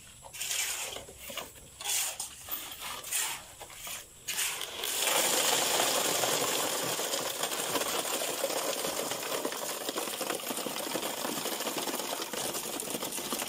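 Wet concrete mix being poured into a wooden column form, sliding and rattling down inside it. A few separate scrapes about a second apart come first; from about five seconds in there is a continuous gritty rush.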